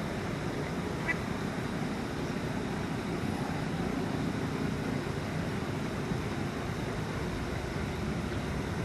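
Eastern spot-billed ducks quacking, with one short sharp call about a second in, over a steady rushing background noise.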